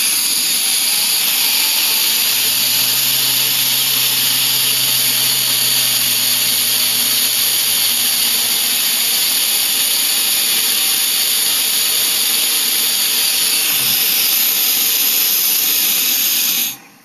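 Compressed air hissing steadily through a bladeless Tesla turbine with carbon fibre discs and ceramic bearings, spinning at about 6,500 RPM under the electrical load of a small generator lighting bulbs. A faint low hum runs underneath for a few seconds, and the air shuts off abruptly near the end.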